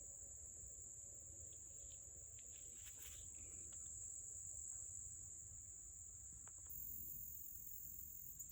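Faint, steady high-pitched drone of crickets, with a few small clicks about two to three seconds in.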